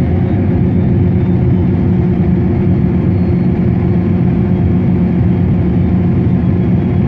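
Combine harvester running steadily at a constant engine speed, a loud, even diesel drone.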